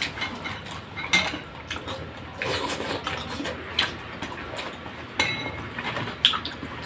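Spoon and fork clinking against a plate and bowl several times, short sharp clinks a second or more apart, as someone eats.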